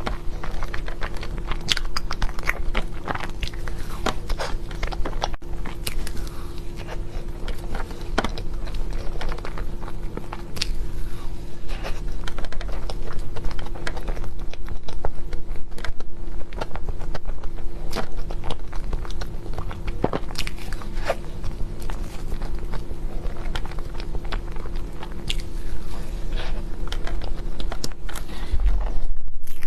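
Close-miked biting and chewing of chocolate desserts, with many short crunches and wet mouth clicks over a steady low hum.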